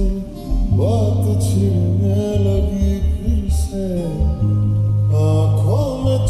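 Slowed-down, reverb-heavy lo-fi version of a Hindi song: a sung melody with sliding, drawn-out notes over long held deep bass notes.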